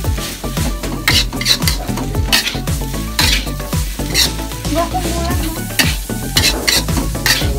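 A metal spatula scrapes and turns fried rice in a metal wok, making repeated scrapes and clinks against the pan, often in pairs, a few a second, over the sizzle of the frying rice.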